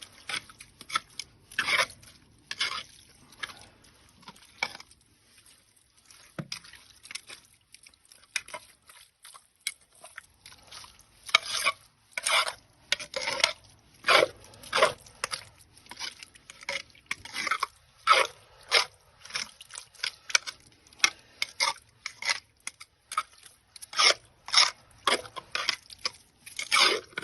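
Metal screwdriver clinking and scraping in a blocked drain as it is worked into a mass of wet wipes, in irregular sharp strokes, one or two a second, coming faster in the second half.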